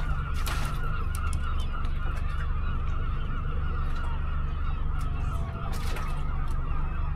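Small boat's outboard motor idling steadily: a low hum with a thin wavering whine above it, and a few light clicks over it.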